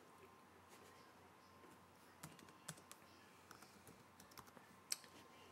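Faint, scattered keystrokes on a computer keyboard typing a short file name, starting about two seconds in.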